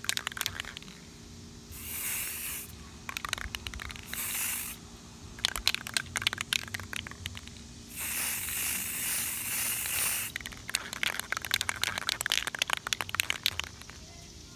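Aerosol spray paint can spraying in three hissing bursts: short ones about two and four seconds in, and a longer one of about two seconds near the middle. Between the bursts there is a rapid clicking rattle.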